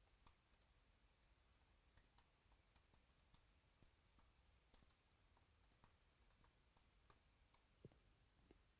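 Near silence with faint, irregular clicks scattered throughout.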